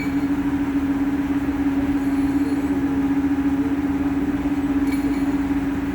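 A machine's engine or motor running steadily at constant speed: a continuous hum with a fast, even flutter.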